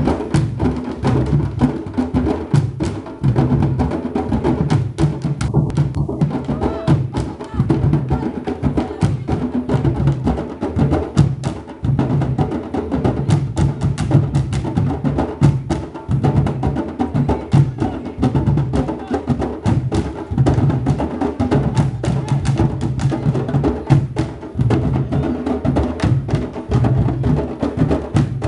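A troupe of large barrel drums playing together in a fast, steady rhythm: sharp clicks of sticks striking the drums over pulsing low drum tones.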